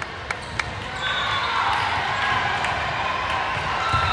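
Voices and crowd chatter echoing in a large gymnasium during a volleyball match, with a couple of sharp smacks in the first second.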